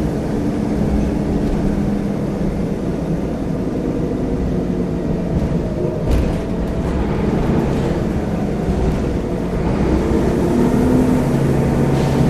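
Diesel engine of a single-deck city bus under way, heard from inside the passenger saloon as a steady drone with road noise, its pitch shifting as it pulls. There is a sharp knock about six seconds in and another near the end.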